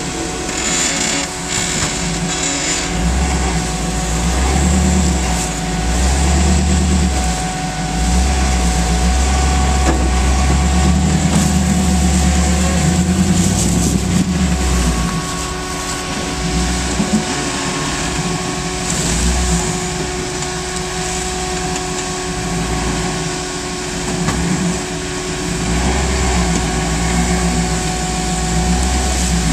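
Engine of a caged Jeep CJ rock crawler running at low speed as it crawls over boulders, the revs swelling and easing in several long surges as the throttle is worked.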